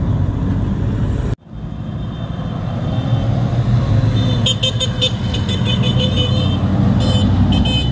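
Car engines rumbling as classic cars drive past: first an old red pickup hot rod, whose sound cuts off abruptly about a second and a half in, then an early-1970s Camaro. From about halfway through, a horn toots in a quick series of short blasts over the engine noise.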